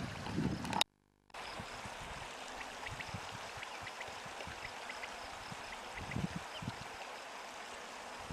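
Steady rush of a small stream's running water, with a few faint high chirps. The sound cuts out briefly about a second in.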